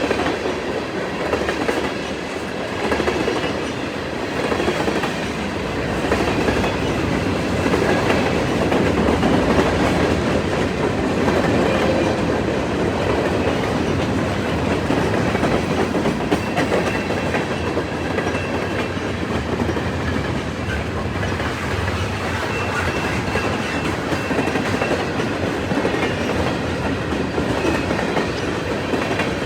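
CN freight train's cars rolling past, wheels clattering over the rails in a steady rumble, with a faint thin wheel squeal at times.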